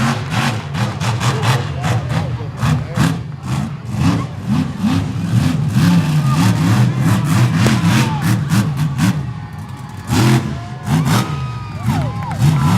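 Monster truck engine revving hard up and down again and again, with many sharp cracks through it. It eases off about nine seconds in, then revs hard again about a second later.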